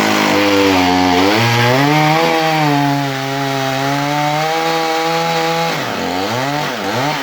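Wood-Mizer band sawmill's engine running under the load of a cut through an oak log, its pitch sagging and recovering as the blade works. Near the end the engine is throttled down and back up several times in quick swoops as the cut finishes.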